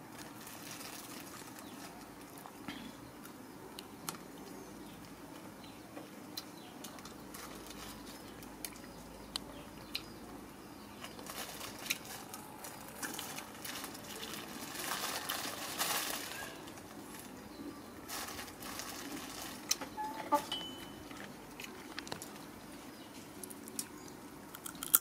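Thin plastic bag crinkling and rustling as it is handled, with scattered small clicks and taps, and a louder stretch of rustling about fifteen seconds in. A couple of sharp clicks stand out about twenty seconds in.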